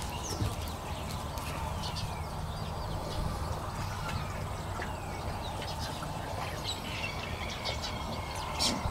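Six-week-old Thai Ridgeback puppies playing, giving short high squeaks and yips throughout over a steady low rumble.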